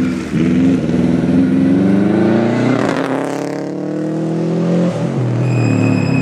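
Rally Subaru Impreza WRX STI's turbocharged flat-four engine accelerating hard toward the listener, its pitch climbing through the gears and dropping at upshifts about three and five seconds in. A steady high-pitched whine joins near the end.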